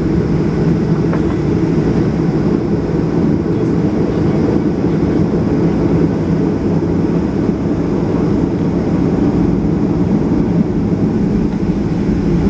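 Boeing 737-800 in flight: a steady low drone of its CFM56 turbofan engines and rushing air, unchanging throughout.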